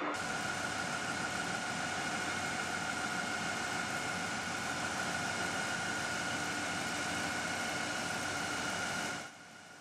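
Workshop machinery running steadily: a constant mechanical hum with a high, even whine over it. It falls away to a faint hiss near the end.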